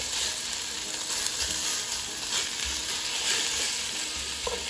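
Chopped bacon sizzling in a little hot oil in a glazed clay cazuela, rendering its fat, with a steady hiss and soft knocks of a spatula stirring it now and then.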